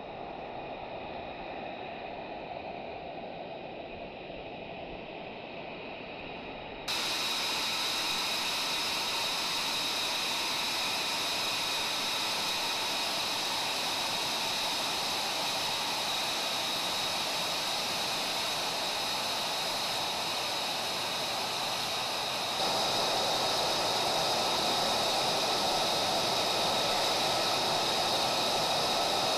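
F-35A Lightning II jet engines running at idle on the flight line: a steady rushing hiss with a high, even whine. The sound jumps suddenly louder twice, about a quarter and three quarters of the way through.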